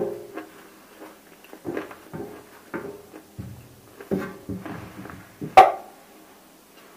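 Close-miked chewing of hard clay cubes with nakumatt paste: a handful of separate, irregular crunches, the loudest and sharpest about five and a half seconds in.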